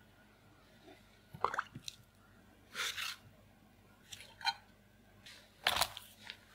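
Four short wet squelches and plops, about a second apart, from popsicle making: thick kiwi puree being spooned into a mold and a frozen popsicle being worked out of its mold.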